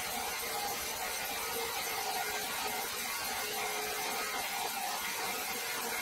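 Horizontal band sawmill cutting through a large hardwood log: a steady hiss of the band blade in the wood over a constant two-tone hum from the machine.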